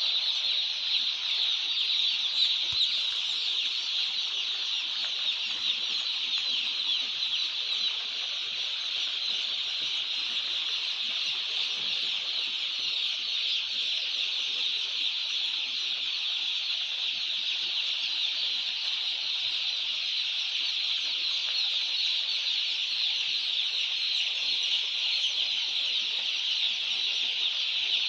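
A large flock of young chicks in a poultry house, peeping continuously in a dense, high-pitched chorus at an even level.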